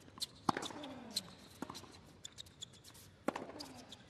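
Tennis ball struck by rackets in a baseline rally on a hard court: three sharp hits about a second and a half apart, with small squeaks and ticks between them.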